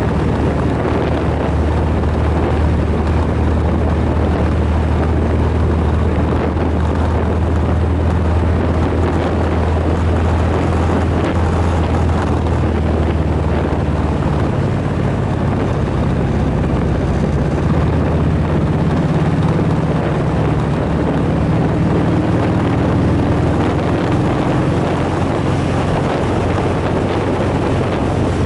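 Motorcycle engine running at road speed, with wind noise on the microphone. The low engine note shifts about halfway through as the speed changes on the curves.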